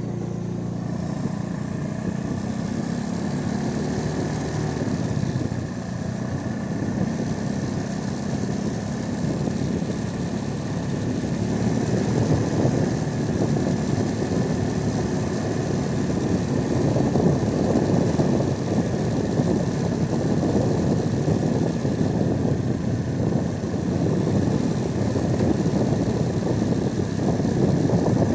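Motorcycle engine running as the bike is ridden slowly along a road, with rushing wind noise over it. The sound grows louder after about ten seconds.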